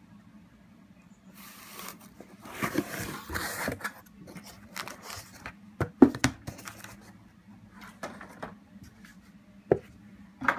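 A cardboard pistol box being opened and its packing handled: scraping and rustling of the lid and papers for a couple of seconds, then scattered sharp knocks and clicks, the loudest about six seconds in.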